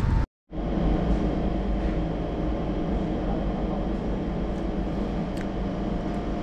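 Steady mechanical hum with several constant tones and no rhythm, cutting out completely for a moment just after the start.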